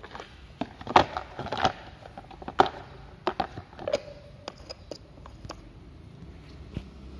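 Hard plastic clicks and knocks as the air filter cover of a Makita EK7651H four-stroke power cutter is handled and fitted back in place: a string of sharp separate clicks at uneven intervals.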